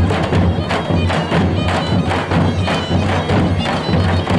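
Traditional Greek folk dance music: a large double-headed daouli drum beaten in a steady rhythm, with a reedy wind instrument playing the melody over it.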